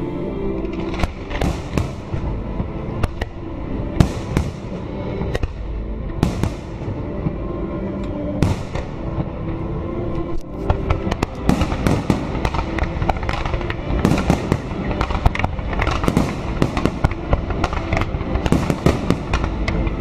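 Fireworks display going off close overhead: a stream of sharp bangs and crackles over a continuous low rumble, spaced out at first and coming in quick succession from about halfway through.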